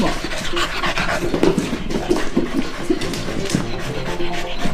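A corgi at play: short low whines and panting sounds, over quick scuffs and patter of paws on the rug and floor.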